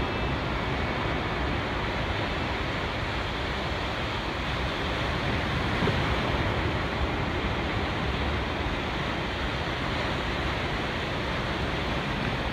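Sea surf breaking and washing over a boulder shore, a steady rushing noise, with some wind on the microphone.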